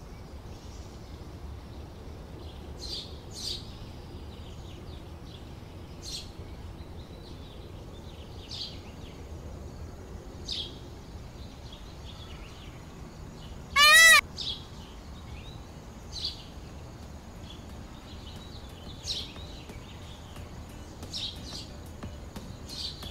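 A single loud peacock call about halfway through: one short honk that rises and falls in pitch. Small birds chirp every couple of seconds around it.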